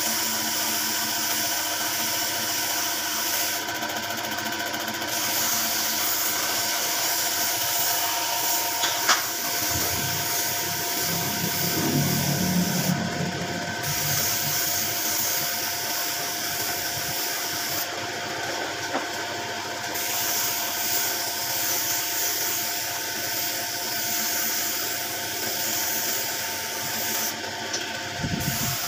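Compressed-air spray gun hissing as it sprays varnish onto wooden decking, over the steady whine of the air compressor's motor. The high hiss cuts out briefly four times, as the trigger is let off between passes.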